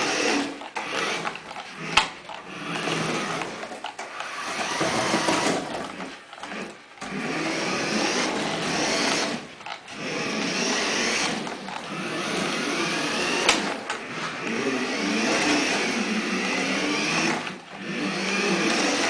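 Battery-powered RC toy car's small electric motor whining in stretches of a few seconds, cutting back briefly between them as the throttle is worked, its tyres on a slippery hardwood floor. Two sharp knocks, about two seconds in and again near the middle.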